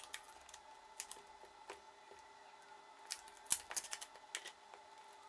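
Scattered light clicks, taps and crinkles of a small cardboard parcel and its paper-and-tape wrapping being handled and picked at while someone works out how to open it.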